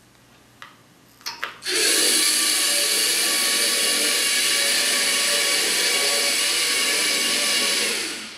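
LEGO Mindstorms NXT robot's two drive motors whining steadily as the robot drives straight across the mat. A few light clicks come first, and the motor whine starts about one and a half seconds in and fades out near the end.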